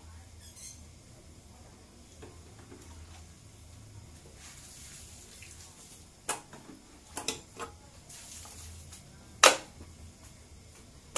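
Sharp metal clinks and knocks of aluminium engine crankcase parts being handled and set against each other during engine assembly: three or four light ones about six to eight seconds in, and one louder knock near the end.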